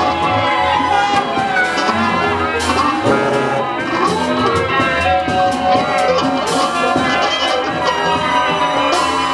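A large mixed ensemble playing together in a dense, layered texture: trumpets and saxophones over electric guitars, accordion, vibraphone and double bass, with drum kit and cymbal hits throughout.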